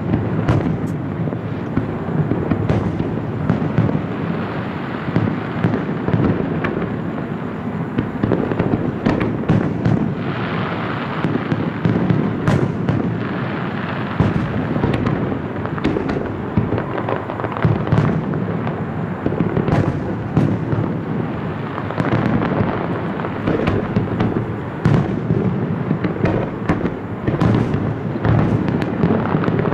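Aerial fireworks display: a continuous barrage of shell bursts, many sharp bangs one after another over a steady low rumble, with no let-up.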